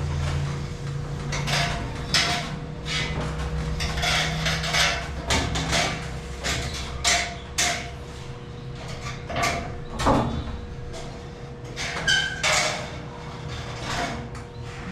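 Irregular knocks, clanks and scrapes of construction work on a steel ceiling framework, with a steady low hum underneath.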